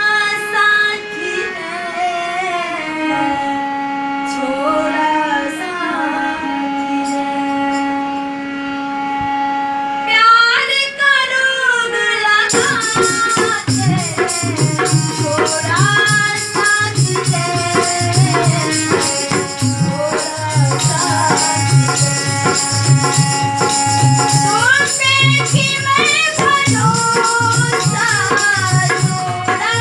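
A young woman sings in long, held, wavering notes, accompanying herself on a harmonium's sustained reedy chords. About twelve seconds in, a steady hand-percussion beat with jingles joins the song.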